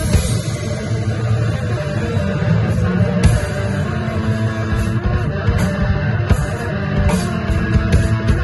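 Instrumental rock played live on an electric guitar and a drum kit: the guitar holds sustained notes over steady drumming with frequent cymbal hits.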